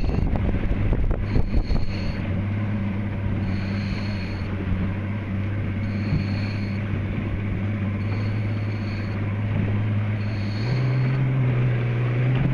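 A RIB's engine running steadily at cruising speed, its note stepping up in pitch near the end as the throttle is opened. A faint high beep repeats about every two seconds over it, with a few handling knocks in the first couple of seconds.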